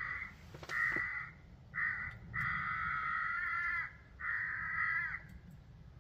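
Electronic predator game caller playing a recorded animal call through its speaker, about five calls in quick succession, the longest about a second and a half. It is not the squealing-rabbit sound that was chosen on the caller.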